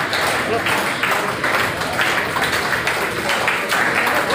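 A crowd clapping steadily, with voices mixed in.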